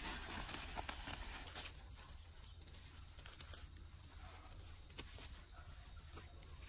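Steady high-pitched drone of forest insects, one unbroken tone, with scattered light clicks and rustles of movement through the undergrowth.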